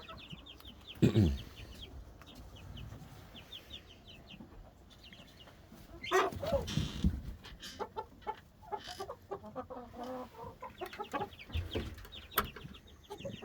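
Chickens clucking, with repeated bursts of quick high chirps. There is a louder sudden sound about a second in and a busier, louder stretch from about six seconds on.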